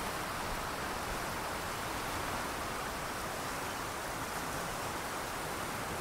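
Sea surf washing on the shore, a steady rushing hiss with no single wave standing out.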